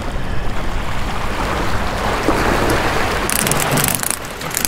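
Small waves surging up over the rocks and splashing, the wash swelling through the middle, with two sharp splashes near the end.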